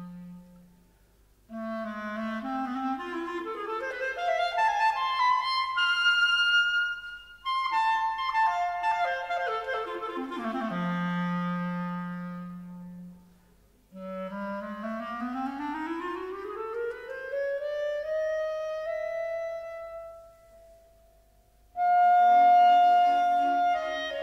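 Solo clarinet playing alone in separate phrases with short pauses between them: a rising run, a falling run down to a held low note, then a long smooth climb to a held high note. Near the end the orchestra comes in louder with full chords.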